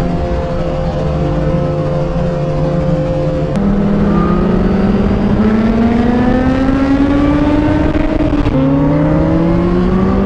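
Kawasaki Ninja H2's supercharged inline-four running at a steady cruise, then pulling harder with a rising engine note. One upshift drops the pitch about 8.5 seconds in, and it climbs again after it, over wind rush.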